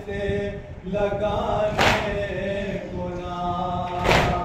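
Men chanting a noha, a Shia lament for Imam Hussain, unaccompanied, with the lead voice on a microphone. Two sharp slaps, about two seconds apart, are hands beating on chests (matam) in time with the chant.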